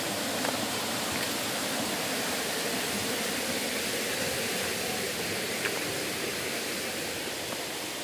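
Steady rush of a waterfall and its stream: an even, continuous noise of falling water.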